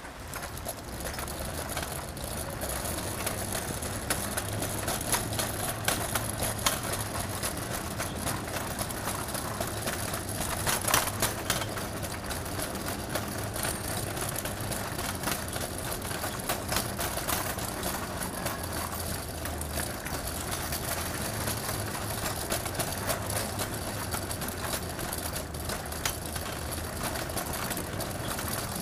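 City street traffic: vehicle engines running with a steady low hum, with scattered sharp clicks and knocks and a louder knock about eleven seconds in.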